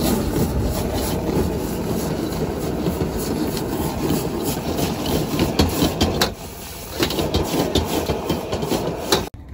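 Noodles being stir-fried in a wok over a high gas burner: a metal ladle scrapes and clanks against the wok again and again over the steady rush of the burner flame. The noise drops briefly about six seconds in and cuts off suddenly just before the end.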